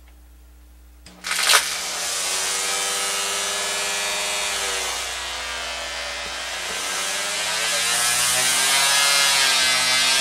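An electric string trimmer's motor, fed through a Variac, switches on about a second in with a brief loud burst as it spins up, then runs with a high motor whine. Its speed and pitch sag in the middle and climb again toward the end as the Variac's voltage is turned down and back up.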